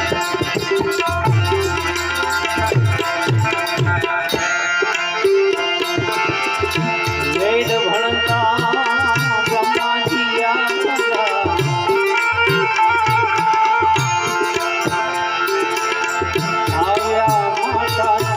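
Instrumental interlude of a Gujarati devotional bhajan: tabla keeping a steady rhythm under a melody line that bends and glides in pitch.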